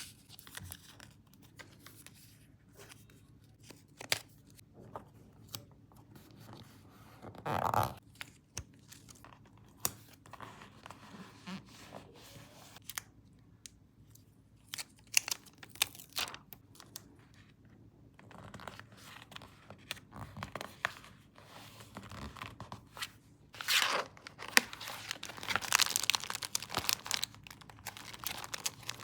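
Paper being handled up close, torn and crinkled: scattered soft rustles and taps, a short louder burst about eight seconds in, and a longer, louder stretch of tearing and crinkling in the last few seconds.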